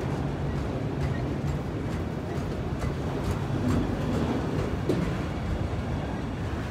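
Loaded autorack freight cars rolling past, a steady low rumble of steel wheels on the rails with scattered clicks and knocks.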